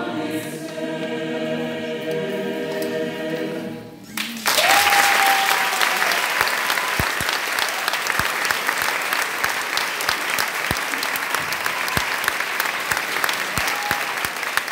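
A mixed choir singing a cappella holds its final chord, which ends about four seconds in. An audience then breaks into steady applause, with a short whistle as it starts and another near the end.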